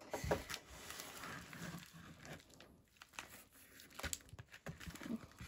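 Light rustling and crinkling of a mailer and a rigid plastic card holder being handled, with a few small clicks and taps.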